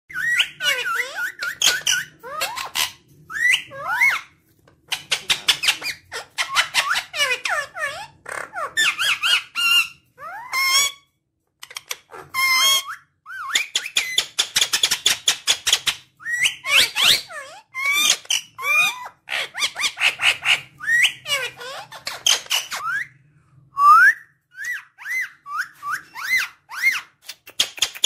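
Indian ringneck parakeet calling: quick runs of short, high-pitched notes and squawks, many gliding up or down in pitch, broken by a few brief silences.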